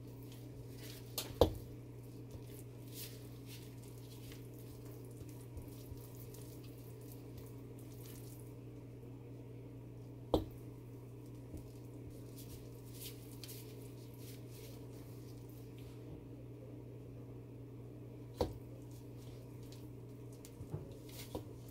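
A spatula stirring thick, freshly gelled hot process soap in a stainless steel pot as baking soda is worked in, with soft scraping ticks and three sharp knocks against the pot, the loudest about a second and a half in. A steady low hum runs underneath.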